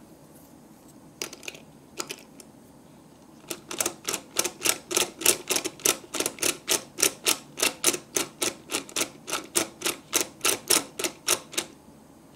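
Plastic dial on a miniature toy stove clicking as it is turned by thumb: a few single clicks, then from about three and a half seconds in a steady run of about three to four clicks a second that stops shortly before the end.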